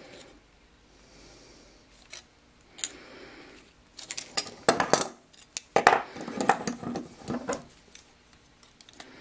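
Steel pliers clinking and scraping on a thin copper strip as it is bent into a curved chuck-jaw cover: a couple of scattered clicks, then about four seconds in a dense run of metal clinks and scrapes lasting three to four seconds.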